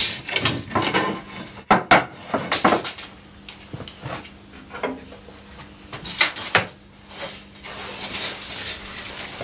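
Wood and tools being handled on a saw table: a series of irregular knocks, clacks and scrapes, loudest about two seconds in and again around six seconds in, over a faint steady hum.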